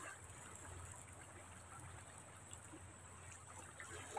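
Near silence: faint, steady outdoor background noise with a light hiss and no distinct sound events.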